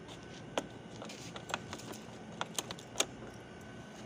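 A run of sharp, light clicks and small rattles, about seven in three seconds, as hands work the controls and switches on a Honda PCX 160 scooter's handlebar.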